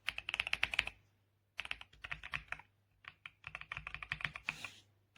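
Fast typing on a Royal Kludge R98 96% mechanical keyboard: three quick runs of keystrokes with short pauses between, each key a soft click.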